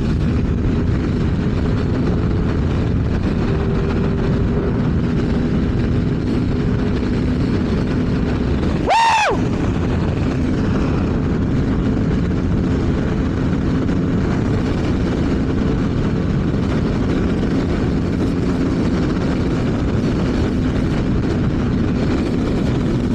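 CFMoto 450SR parallel-twin engine held at high revs at highway top speed, under heavy wind noise, with one quick swing in revs about nine seconds in.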